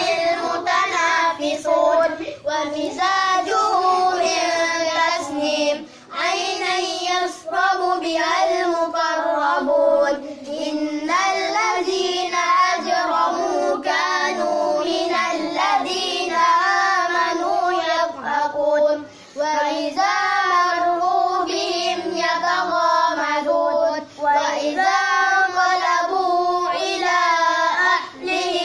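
Boys reciting the Quran aloud in a chanted melody (tilawah), the voice gliding through ornamented phrases with short pauses for breath every few seconds.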